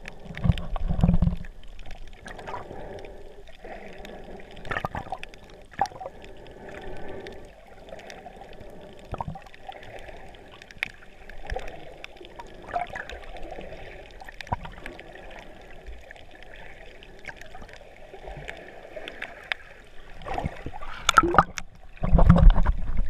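Water gurgling around a GoPro Hero3 held underwater in its waterproof housing, muffled, with scattered clicks and knocks. Heavier low thumps come about a second in and again near the end.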